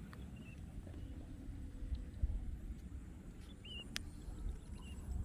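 Outdoor pond-side ambience: a steady low rumble of wind on the microphone, with a few short high bird chirps and one sharp click about four seconds in.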